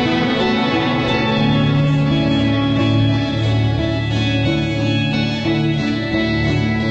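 Background music led by a guitar with steady sustained notes.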